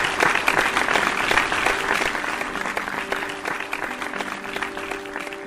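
Audience applause at the end of a recited poem, fading away. A few steady notes of outro music come in about two seconds in.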